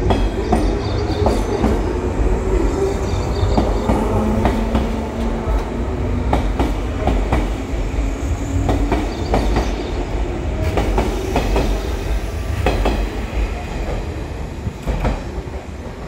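JR West 117 series electric train pulling out and gathering speed: a low rumble with wheels clacking irregularly over rail joints. It grows fainter near the end as the last car draws away.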